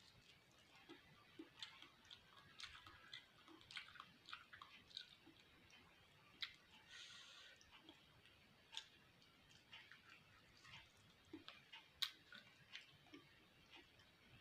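Soft close-up chewing of a mouthful of beef fat: wet clicks and smacks coming irregularly, with a brief hiss near the middle and one sharper click about twelve seconds in.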